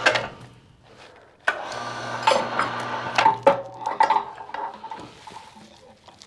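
The log roller's winch running in two spells, the second, longer one from about a second and a half in, with metallic clanks and knocks from the roller and log as it works.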